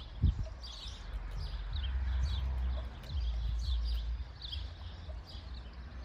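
Small birds chirping over and over in the background, short falling chirps, over a low steady rumble. There is a single thump about a third of a second in.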